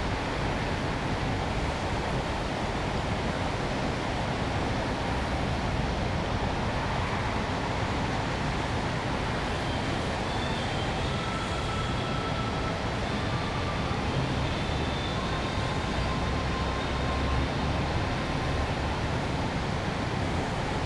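Steady hum of city traffic and urban ambience, with a few faint, brief higher tones.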